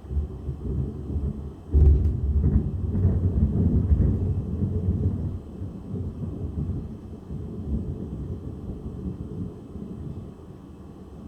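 A thunderclap: a rumble builds, then a sharp crack comes about two seconds in, followed by loud, deep rolling thunder that slowly dies away.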